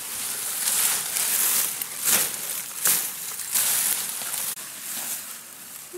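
Long grass and dry leaves rustling as hands push through and pull at a dense clump of grass, in a series of irregular bursts.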